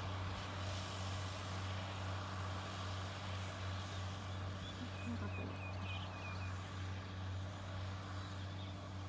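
Tractor engine running steadily at working speed as it ploughs the field, a low even drone. A bird chirps a few times, briefly, about five seconds in.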